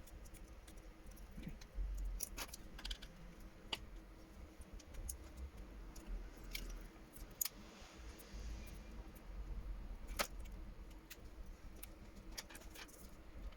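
Faint, scattered clicks and small crackles of a smartphone battery being pried out of its bed, its strong adhesive giving way bit by bit, with low handling bumps.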